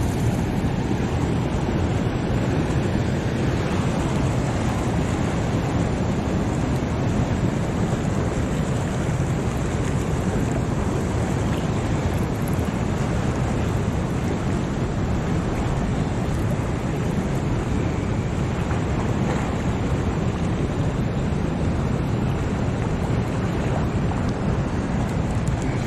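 Fast, churning spillway water rushing steadily, a deep even rush of noise that does not change.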